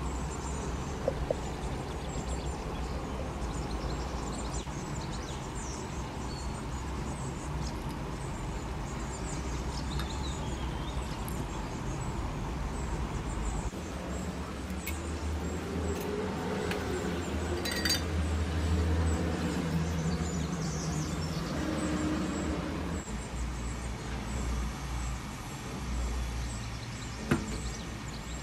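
Steady low background rumble with faint high chirps, broken by a few sharp clicks, one about a second in, one midway and one near the end.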